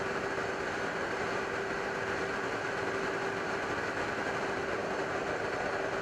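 F-35B fighter jet's engine running steadily: an even rushing noise with a held whine.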